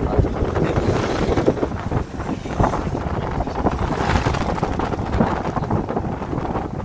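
Wind buffeting the microphone of a phone filming from a moving Chevrolet Colorado pickup, a rough, fluttering rush over the vehicle's steady road and engine rumble.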